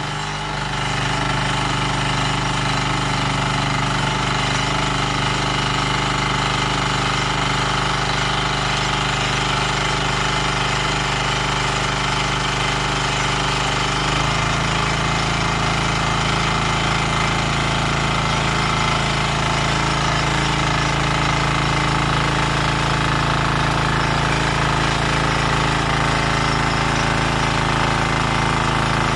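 Bolat Atom 7 hp single-cylinder diesel rotary tiller running steadily under load as its tines churn unploughed soil. Its note changes about halfway through.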